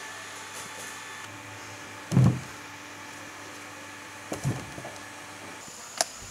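Two dull thumps of heavy pumpkins being set down on a cement floor, the louder about two seconds in and a lighter one about two seconds later, over a steady faint hum. A short sharp click near the end.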